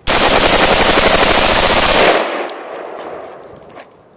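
AR-15 rifle bump-fired: a rapid, unbroken string of shots lasting about two seconds, fast like full-auto fire, the rifle's recoil working the trigger. The shots stop abruptly and their echo fades away over the next two seconds.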